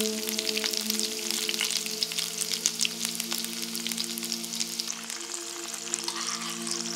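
Garlic and spring onion bulbs sizzling in hot vegetable oil in a nonstick pan, a steady dense crackle of tiny pops.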